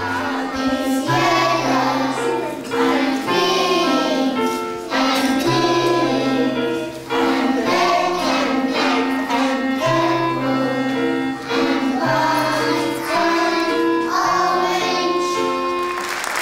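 A group of young children singing a song together to an instrumental accompaniment with held low notes.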